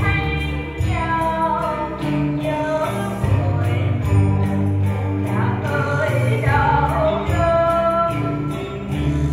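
A woman singing a cải lương (Vietnamese reformed opera) vocal line, with long sliding, held notes over a steady instrumental accompaniment.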